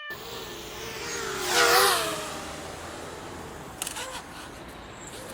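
Small FPV quadcopter's brushless motors whining over rushing air noise. The pitch wavers and swells to its loudest about a second and a half in as the quad passes close, then settles. A few sharp clicks come about four seconds in.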